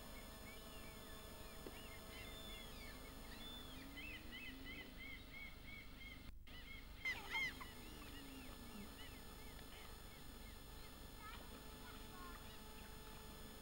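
Birds calling at a lake: series of short, repeated, honking calls, loudest in a brief cluster about seven seconds in, over faint steady camcorder hiss. The sound drops out for an instant just before that cluster, at a cut in the tape.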